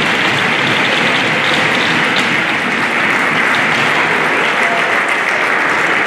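Spectators applauding steadily at the end of a match, an even, continuous clapping.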